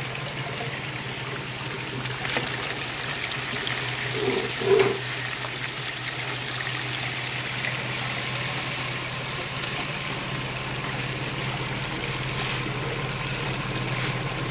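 Water rushing steadily over a vibrating gold sluice's riffles, over the steady low hum of the sluice's vibrator running at its 30-volt first setting. A brief louder sound comes about four to five seconds in.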